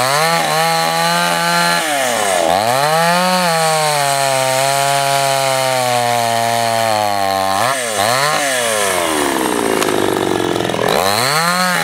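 Two-stroke chainsaw cutting through a mango log. Its engine pitch dips sharply several times as the chain bites and picks back up between. About nine seconds in it eases off as the saw comes out of the cut, then revs up again near the end.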